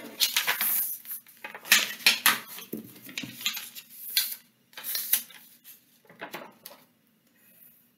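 A sheet of printer paper being folded back and forth into a fan shape and creased, with crisp rustling and crackling that thins out to a few faint rustles after about six seconds.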